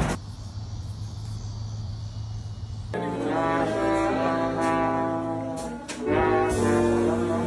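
Brass band playing: a low steady note for the first few seconds, then trombone and trumpet come in about three seconds in with long held chords that change pitch, pausing briefly near the end before playing on.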